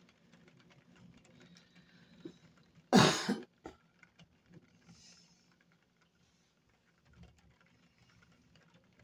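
Rain pattering lightly on a window pane during a storm, with one loud, sharp bang about three seconds in.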